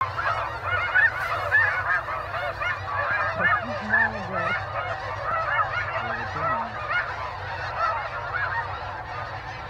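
A huge flock of snow geese calling overhead: a dense chorus of many short, overlapping honks with no break.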